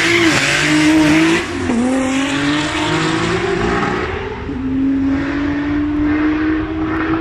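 Audi S3's turbocharged VR6 (R30) engine at full throttle, accelerating away down a drag strip. The pitch climbs through each gear and drops at the upshifts, about a second and a half in and again about four and a half seconds in, growing fainter as the car draws away.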